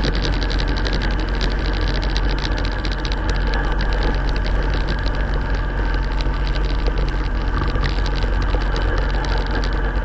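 Motorcycle engine running steadily at low riding speed, heard through a camera strapped to the bike, with a constant low hum and a fast run of small ticks.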